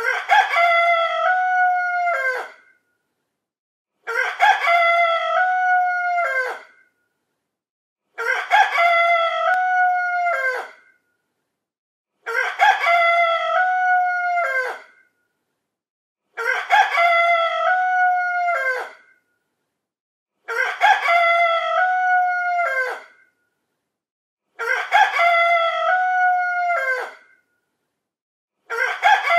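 Rooster crowing cock-a-doodle-doo, the same crow of about two and a half seconds repeated about every four seconds with dead silence between, each ending in a falling tail.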